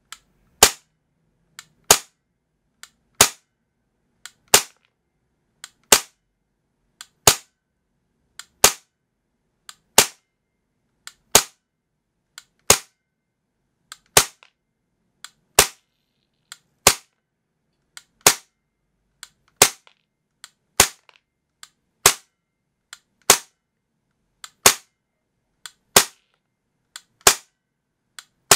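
Tokyo Marui USP9 gas blowback airsoft pistol, running on green gas, firing about twenty single shots at an even pace of roughly one every 1.3 seconds. A fainter click falls between each pair of shots.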